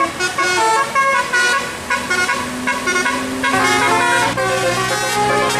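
Bus telolet horn, a Basuri multi-trumpet musical air horn with roof-mounted trumpets, playing a quick tune of stepped notes, several sounding together. A lower held note joins a little past halfway.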